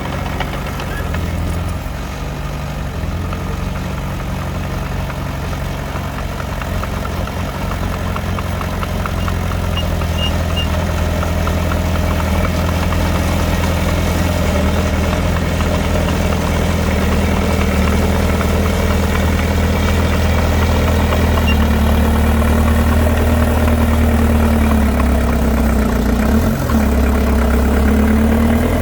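Diesel engine of heavy earthmoving machinery running steadily. It grows somewhat louder after about ten seconds, and its pitch shifts a little in the last part.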